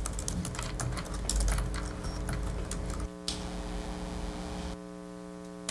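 Quick, irregular clicking and tapping for about three seconds, then only a steady low hum.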